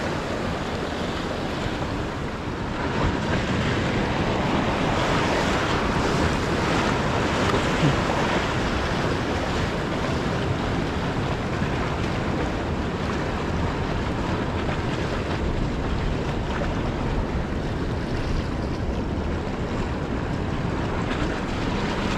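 Ocean surf washing over rocks, with wind blowing across the microphone: a steady rushing noise.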